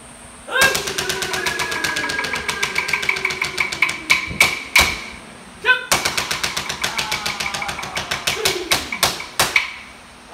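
Clapsticks struck in a fast, even rhythm under a chanting voice whose line slides down in pitch. Two phrases, each closing with a few heavier, spaced strikes, with a short pause between them.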